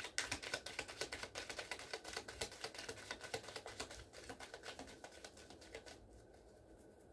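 A deck of tarot cards being shuffled by hand: a quick run of soft, papery clicks that thins out and stops about six seconds in.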